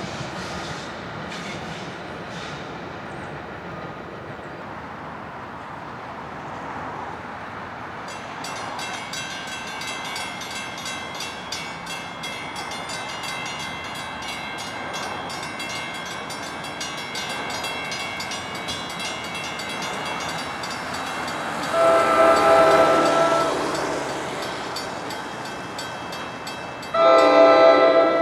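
Commuter train approaching, with a bell ringing rapidly and steadily from about a third of the way in. The train's air horn then sounds two loud blasts: one of about a second and a half, and another starting near the end.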